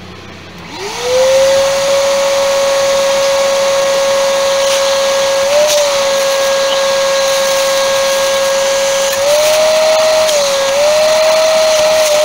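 Ridgid wet/dry shop vacuum switched on, its motor spinning up to a steady, loud whine. The pitch lifts slightly a few times, near the middle and again toward the end, as it sucks up mouse-fouled insulation debris from the car's roof.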